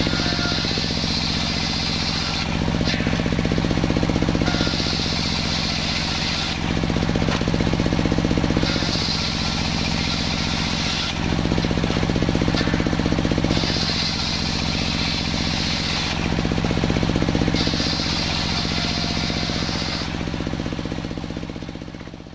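Large sawmill circular saw running with a steady machine hum, ripping through salam (Indonesian bay leaf) wood planks in about five passes, each a high whining cut of two seconds or so, every four seconds.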